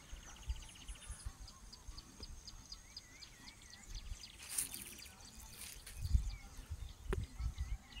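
Faint rural ambience: insects trilling in fast pulses and a small bird repeating a short wavy whistled call, with scattered low thumps on the microphone.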